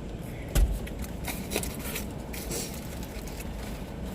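A dull thump about half a second in, then a few short crinkles and rustles of food packaging being handled, over a steady low rumble from the car.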